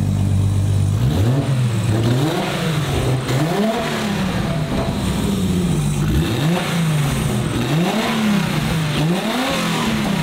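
RB26 straight-six in a Datsun 240Z, single-turbo and run through a muffler, idling and then revved in about five quick throttle blips, each rising and falling back toward idle.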